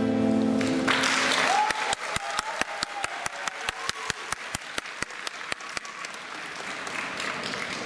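A female voice and acoustic guitar end a song on a held note, then an audience applauds, with one pair of hands close by clapping fast and evenly, about six claps a second, before the applause thins out.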